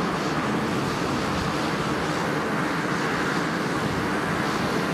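The twin Pratt & Whitney Canada PT6A-65SC turboprop engines of a Cessna SkyCourier running steadily with the propellers turning as the aircraft taxis, a constant drone.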